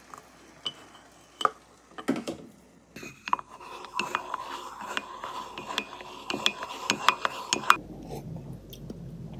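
A wooden stir stick clinking and scraping against the inside of a ceramic mug while stirring coffee: scattered knocks at first, then a quick run of about three clinks a second that stops abruptly near the end.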